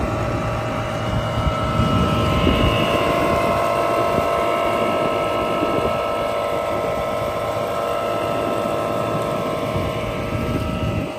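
Hangkai 48V 1200W electric outboard motor running at cruising speed: a steady whine of several pitched tones over a low rushing noise.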